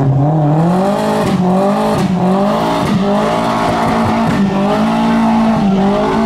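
Car engine revved hard and held at high revs, the pitch dipping briefly and climbing back several times.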